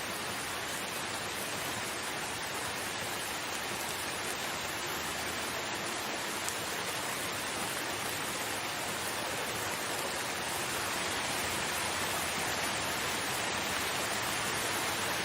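Steady rain falling, an even hiss with no distinct drops or gusts, growing a little louder in the second half.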